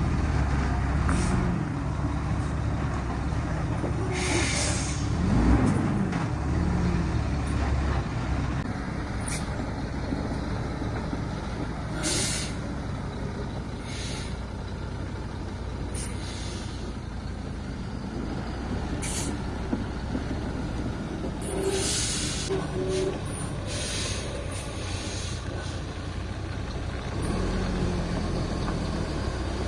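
Loaded logging truck's diesel engine running, with its pitch rising and falling a few times in the first seconds. Short hisses come several times over the engine drone.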